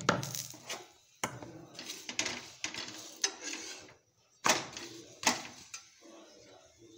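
Metal spatula clanking and scraping on a tawa as an oiled paratha is turned and pressed, with about five sharp clanks spread over the first five seconds and softer scraping between them.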